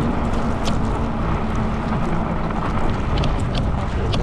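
Bicycle tyres pushing through deep snow under steady wind noise on the microphone, with a faint steady low hum and scattered short high ticks.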